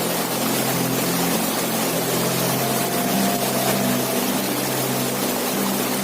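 Waterfall: steady rushing of falling water with an unbroken hiss. A steady low hum runs underneath.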